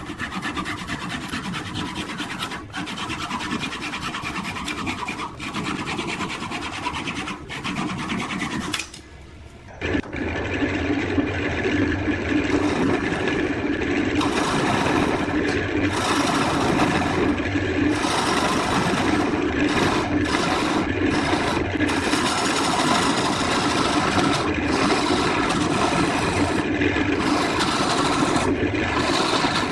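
Wood being worked on a woodturning lathe: a steady rasping, rubbing sound of a tool against the turning wood. It drops away briefly about nine seconds in and resumes louder.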